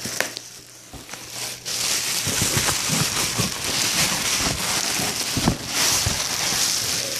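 Plastic wrapping crinkling and rustling as a wrapped bust is pulled out of a cardboard shipping box, with a few knocks and bumps of handling. The crinkling swells about two seconds in and keeps on.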